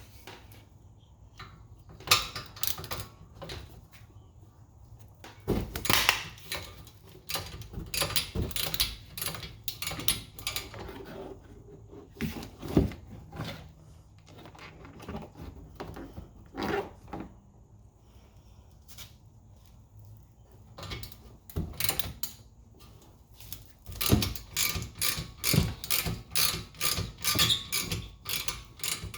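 Metal hand tools clanking and clicking irregularly on a rear brake caliper, then a quick, even run of ratchet-wrench clicks, about four a second, starting about five seconds before the end.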